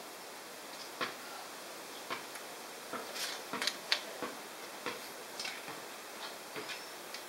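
Irregular light metallic clicks and ticks, a dozen or so, bunched around the middle, from rocker arms on a GT40 cylinder head being worked by hand.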